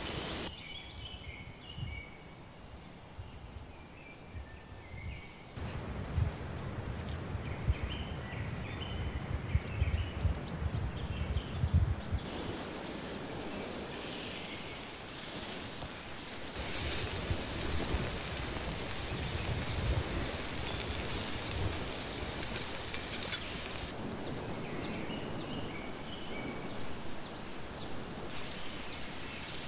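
Small birds chirping over an even hiss of sizzling and crackling from lamb testicles searing on a hot stone slab above a wood fire, with a few louder low thumps between about six and twelve seconds in.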